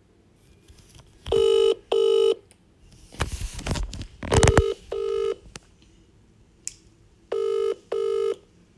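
A phone's outgoing-call ringing tone from its speaker: a double ring, two short beeps together, repeating about every three seconds, three times. Around the middle there is a burst of rustling handling noise against the phone.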